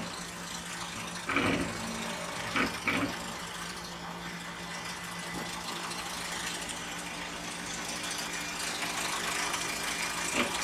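Car engine idling and running steadily while the car rolls slowly over a soft foam ball. There are a few short thumps in the first three seconds.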